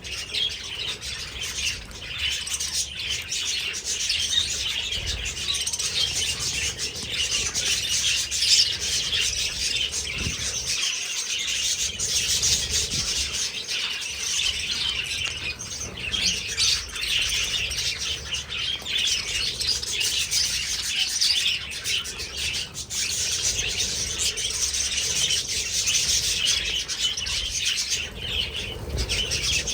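A flock of budgerigars chirping and chattering continuously, many high chirps overlapping into a dense steady twitter.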